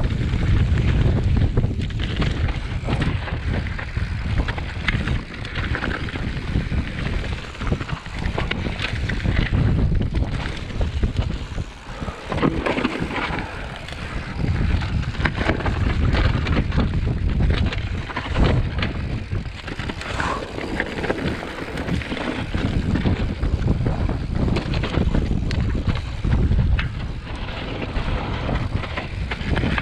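Wind buffeting the mountain biker's camera microphone in a heavy, uneven rumble, over tyres rolling on a loose, stony trail and the bike rattling with many small knocks as it rides over rocks.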